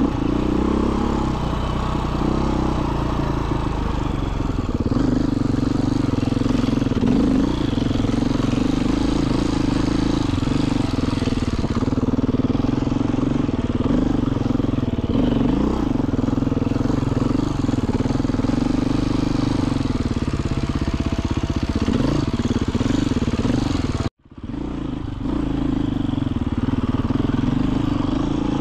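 2021 Beta 500 RRS enduro motorcycle's single-cylinder four-stroke engine running while riding, its pitch rising and falling with the throttle. The sound cuts out for a moment about three-quarters of the way through, then comes back.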